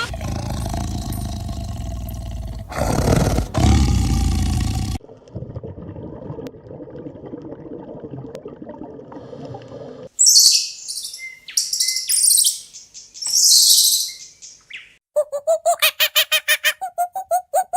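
A run of different animal calls. It opens with a low, noisy stretch and loud bursts, then shrill high-pitched screeches, and near the end a rapid series of short pitched bird calls, about five a second.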